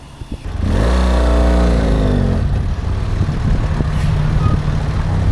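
A vehicle engine running loudly close by, starting abruptly about half a second in with a low, deep note whose pitch dips around two seconds in, then settling into a steady low hum.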